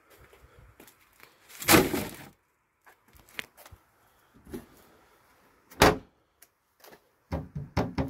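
Plastic wheelie bin being filled with cardboard and plastic packaging. A loud rustling clatter comes about two seconds in, a sharp knock near six seconds, and a quick run of knocks near the end as the plastic lid is shut.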